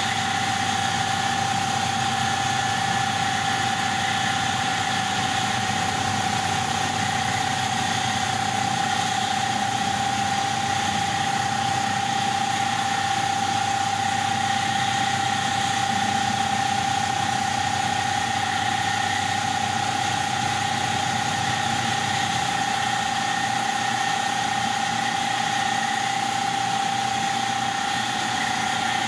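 Bao Yuan Tong CNC laser cutting machine running as it cuts a sheet: a steady, unbroken whine over a constant hiss and low hum.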